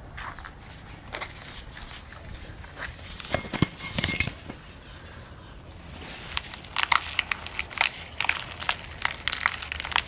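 Crackling and rustling of lettuce leaves and a plastic cup being handled close to the microphone, in irregular bursts that grow much denser in the second half.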